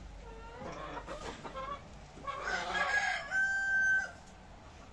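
Chickens calling: a run of short clucks, then about two seconds in a louder call that ends in one long held note.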